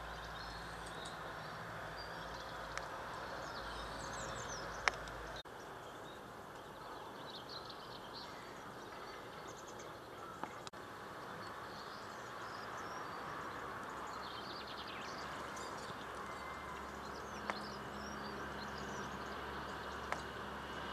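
Small garden birds chirping and twittering in short scattered calls over steady outdoor background noise, with a few sharp clicks, the loudest about five seconds in.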